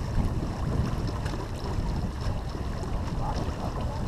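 Wind buffeting the microphone over the wash of water along the hull of a sailboat under sail: a steady, uneven low rumble.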